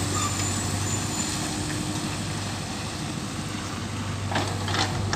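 JCB 3DX backhoe loader's diesel engine running steadily under load with a low hum. A few short knocks come near the end.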